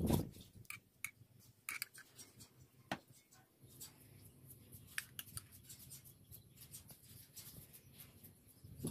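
Metal spoon clicking and scraping against a glass bowl as a chili dressing is spooned out, in scattered sharp clinks, with a low thump right at the start.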